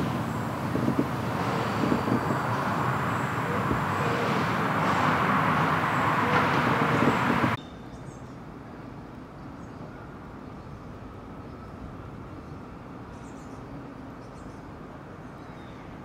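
Steady road traffic noise that swells as a vehicle passes, then cuts off abruptly about halfway through; after that a quiet outdoor hum with a few faint, high bird chirps near the end.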